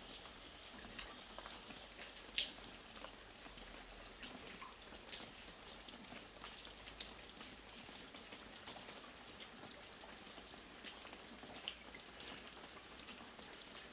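Light, fine rain falling steadily, with individual drops dripping from a roof edge, a few of them louder and sharper than the rest.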